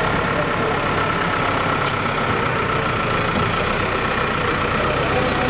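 Diesel engine of an Escorts backhoe loader running steadily while the front loader bucket is hydraulically raised.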